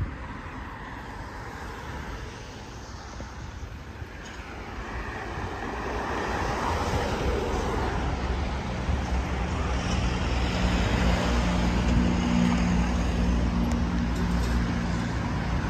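Road traffic noise, getting louder about four seconds in. A steady low engine hum joins about halfway through.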